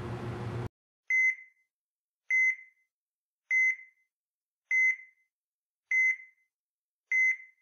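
Hospital heart monitor beeping a steady pulse: six short high beeps, evenly spaced about 1.2 seconds apart, with silence between. Before the first beep, a steady background noise cuts off suddenly just under a second in.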